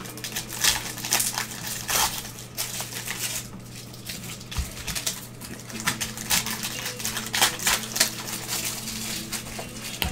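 Plastic wrapper of a basketball trading-card pack crinkling and rustling as gloved hands tear it open and pull the cards out, in irregular crackles.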